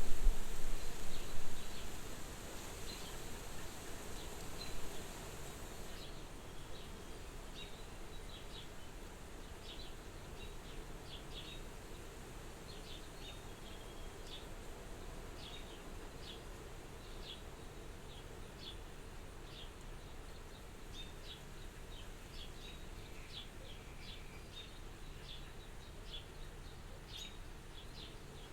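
Soft wind blowing at a farmhouse window, a little louder and gusty in the first two seconds and then steady, with short high chirps outside every second or so.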